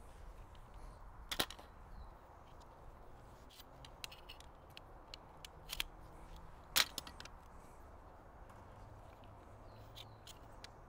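Shock-corded metal leg sections of a camping cot clicking as they are pulled apart, flipped and snapped back together: a few sharp clicks, the loudest about seven seconds in.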